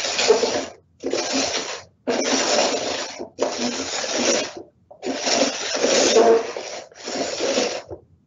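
Cups slid and shuffled across a tray, scraping in about six separate strokes of roughly a second each, with short silent gaps between.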